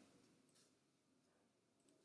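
Near silence: room tone, with a couple of very faint clicks.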